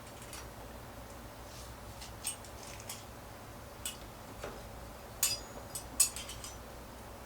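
Light scattered clicks and clinks of small metal parts being handled: the fittings of a trim router's edge-guide fence. The clicks come one at a time, with a quick cluster about five to six seconds in, over a faint steady hum.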